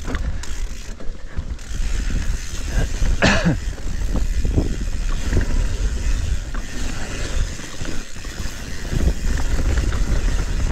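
Mountain bike descending a rough trail: the bike's parts rattle and click over the bumps over a steady low rumble of tyres and wind. A brief squeal about three seconds in.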